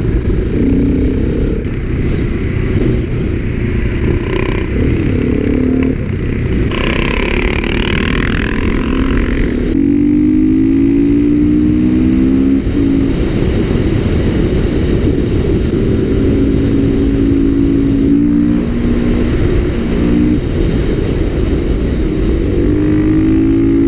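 Motorcycle engine running during a ride, its note holding at several steady pitches and shifting between them, over a constant low rumble. Partway through, a higher hiss lasts about three seconds.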